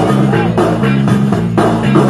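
DJ-played funk-style music with a bass line, guitar and a steady drum beat, loud in a dance hall.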